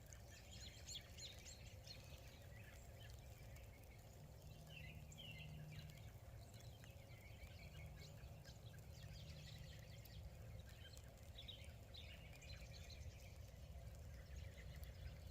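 Faint bird chirps, many short calls scattered throughout, over a low steady rumble of outdoor background noise.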